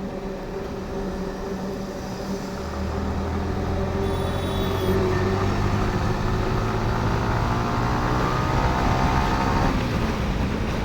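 Yamaha R15 V4's 155 cc single-cylinder engine accelerating, its pitch climbing steadily before dropping off near the end as the throttle is eased or a gear is changed, with wind and road noise around it.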